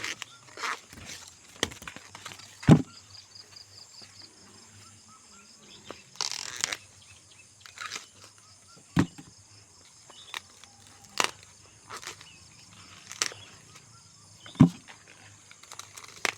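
Ears of corn being snapped off their stalks by hand: a sharp snap every couple of seconds, with a longer rustle of leaves about six seconds in, over a steady high drone of insects.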